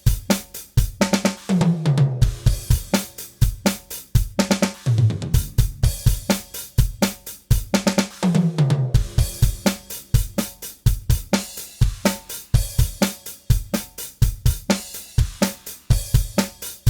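DrumGizmo virtual drum kit playing a beat of kick, snare, hi-hat and cymbals, with falling tom fills about two, five and eight seconds in. The soloed drum bus is dry, too clean and hollow-sounding, lacking bleed between the drum mics.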